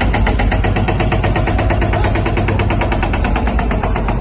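Heavy machinery at close range pounding out rapid, even knocks, about ten a second, over a deep rumble.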